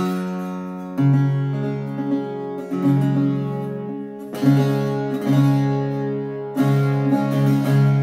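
Handmade Irish bouzouki with a pitch pine top, maple back and sides and octave strings on the bottom two courses, being strummed: a slow run of loud chords, each struck sharply and left to ring into the next.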